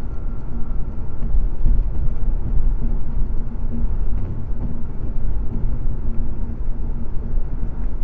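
Car cruising at highway speed, heard from inside the cabin by a dashcam: steady road and tyre noise with a low rumble.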